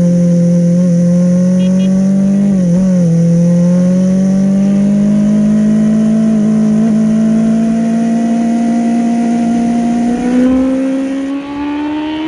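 Yamaha Fazer 600's inline-four engine running at sustained high revs, its pitch slowly climbing. There is a brief dip about three seconds in, and a step up with a louder burst near the end.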